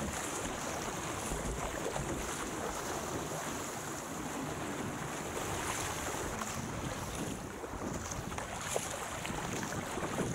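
Sea water rushing and splashing along a surfski's hull as it is paddled through choppy open water, with heavy wind on the microphone. One sharp tap near the end.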